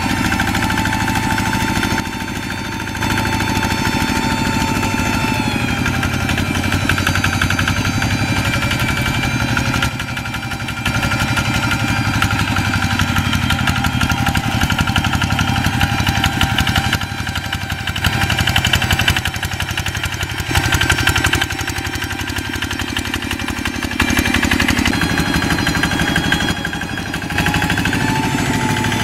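Old single-cylinder diesel engines of two-wheel hand tractors running steadily under load as they till a flooded rice paddy. The level drops and jumps back abruptly a few times.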